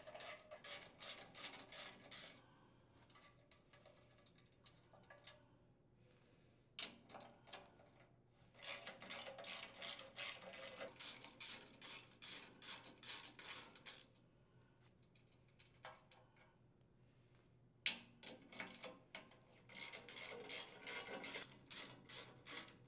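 Faint clicking of a socket ratchet loosening mounting bolts, in three runs of quick, even clicks with pauses of a few seconds between them. A single sharper click comes just before the last run.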